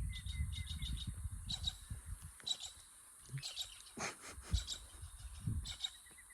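Small birds chirping in short quick clusters, over a steady high insect hum, with a low rumble through the first half.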